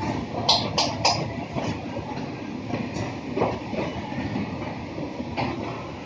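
Steady running noise of a commercial kitchen's extraction hood and stove burners, with sharp metal clanks of pans and utensils: three close together about half a second to a second in and one more near the end.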